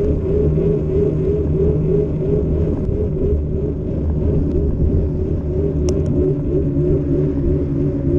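Steady low rumble of a bicycle rolling along a paved street, its tyres on the asphalt, with wind on the microphone and a hum that wavers up and down regularly. A brief sharp click about six seconds in.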